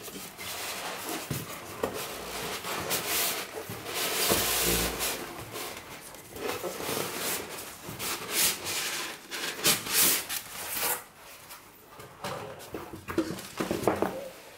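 Cardboard box flaps and foam packing rustling, rubbing and scraping in irregular bursts as hands dig into the box and lift out a packed speaker.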